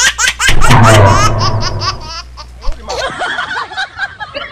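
High-pitched laughter sound effect, a rapid run of laughs over the first second or so that then fades. About three seconds in it cuts to a quieter string of short high chirps.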